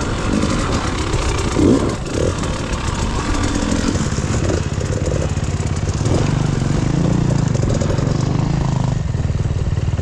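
Enduro dirt bike engine running under way, the revs rising and falling with the throttle, then holding steadier from about six seconds in.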